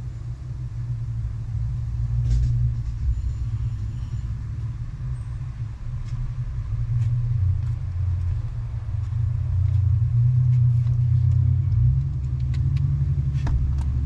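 A steady low rumble that shifts in pitch a little about three-quarters of the way through, with a few faint clicks and taps over it.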